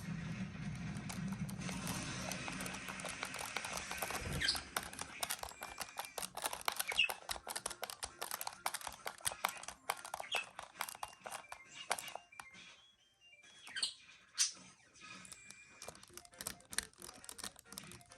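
Small clicks and taps of a screwdriver and screws being worked into the plastic underside of a radio-controlled car, with a few brief squeaks.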